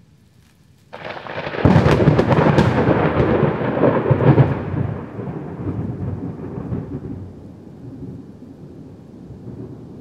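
A thunderclap: it breaks in suddenly about a second in, crackles loudly for about three seconds, then rolls on as a low rumble that slowly fades.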